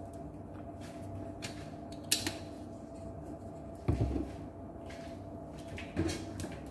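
Kitchen handling sounds: three short knocks and clatters, about two, four and six seconds in, over a faint steady hum.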